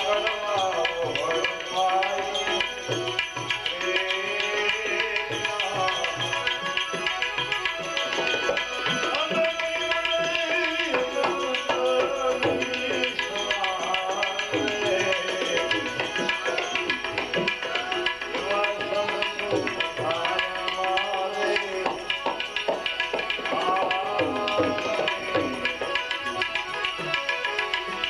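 Bhajan music: tabla drumming under a melody that glides up and down.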